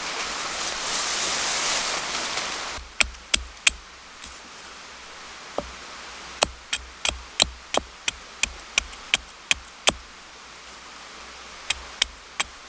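A steady hiss that cuts off suddenly about three seconds in, then a knife chopping on a cutting board in quick runs of sharp, evenly spaced taps, about three a second.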